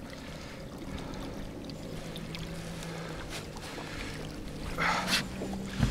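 Steady low motor hum aboard a small boat, with a brief splash or rustle about five seconds in.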